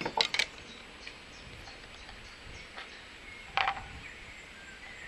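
Sharp clicks and knocks of a tyre lever prying at the glued-down plastic top cover of a sealed lead-acid battery: a quick cluster of several at the start and a single louder knock with a short ring about three and a half seconds in.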